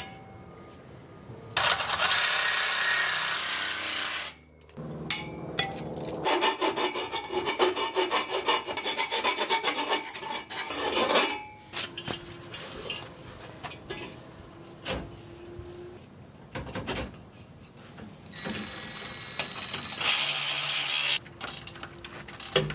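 Metal scraping and rubbing as a clamp-on exhaust tip is worked onto a pickup's tailpipe, in several separate bursts. There is a stretch of rapid clicking about six to eleven seconds in, and another burst of scraping near the end.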